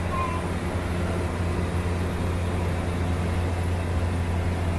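Steady cabin drone of a Cessna Caravan's single turboprop engine and propeller in cruise: a constant low hum with airflow hiss above it.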